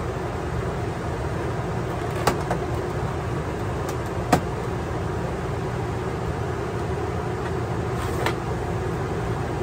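Travel trailer's rooftop air conditioner running, a steady rush of blowing air over a low hum. A few sharp plastic clicks, about two seconds in, about four seconds in and more faintly near the end, as the filter grilles of its ceiling assembly are pulled off.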